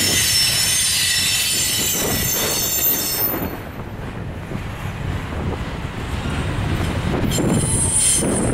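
Double-stack container cars of a freight train rolling past with a steady rumble of steel wheels on rail. A high, ringing wheel squeal lasts through the first three seconds, then returns briefly near the end.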